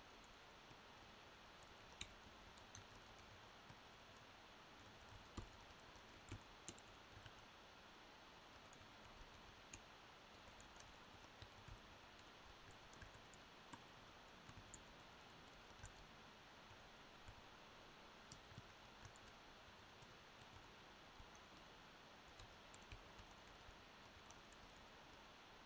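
Near silence: faint room hiss with sparse, irregular light clicks scattered through it.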